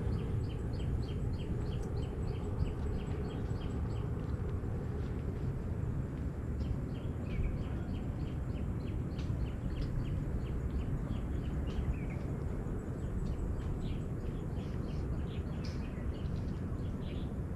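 Birds chirping in short, high calls repeated several times a second, with a few brief gliding notes, over a steady low rumble.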